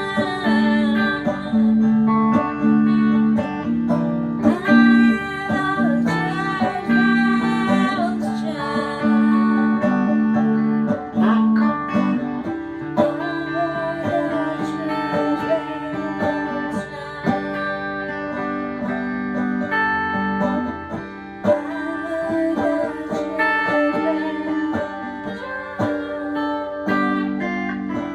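Stratocaster electric guitar and electrified banjo playing an instrumental together. A low note repeats in even pulses through the first half, then the plucked playing becomes busier and more varied.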